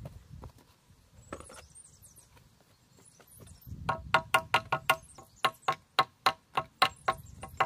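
Hammering: quick metal-on-metal hammer blows, each with a bright ring, about four or five a second, starting about four seconds in with a brief pause in the middle.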